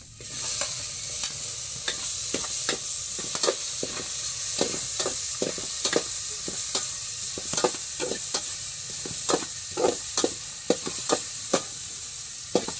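Sliced ginger frying in hot oil in a metal pot: a steady sizzle that starts at once as the ginger goes in. A metal spoon stirs it, clinking and scraping against the pot's side several times a second.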